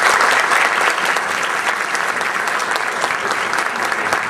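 Conference audience applauding steadily: many hands clapping, a dense even patter that carries on through and fades slightly near the end.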